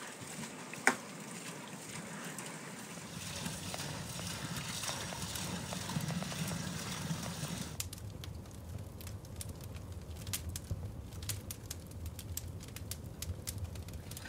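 A single sharp knock about a second in against steady outdoor noise; then, about halfway through, a wood campfire of burning split logs, crackling with many small pops over a low steady rumble.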